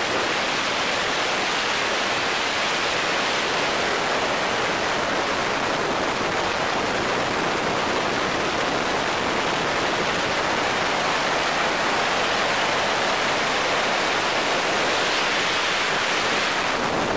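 Steady rush of freefall wind over the camera's microphone: a dense, even hiss with no breaks.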